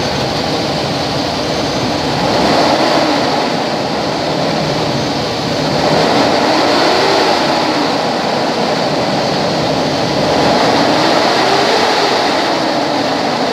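2001 Chevrolet Express 3500's Vortec V8 gasoline engine running after a start. Its pitch and loudness rise and fall three times, about two seconds, six seconds and ten and a half seconds in, as the throttle is blipped.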